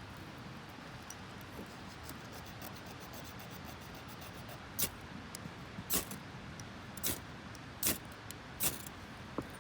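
A fire starter struck five times in quick succession, about once a second, each a short, sharp, bright scrape, in an attempt to throw sparks onto tinder that has not caught yet.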